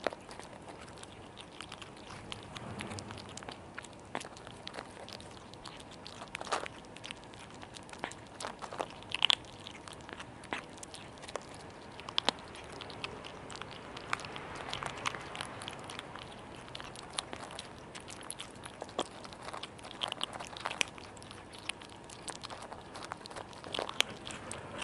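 Cats crunching and chewing dry kibble close to the microphone: irregular crisp crunches throughout, a few sharper and louder than the rest.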